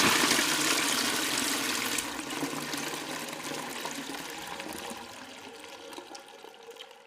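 Toilet flushing: a rush of water, loudest at the start, then gradually dying away over about seven seconds until it stops.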